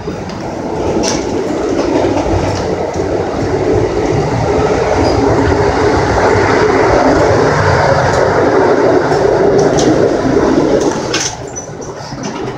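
Running noise of a moving Amtrak passenger train heard between cars: a loud, steady rumble of wheels on the rails with a few sharp clicks. The noise swells about a second in and drops away near the end, after a click.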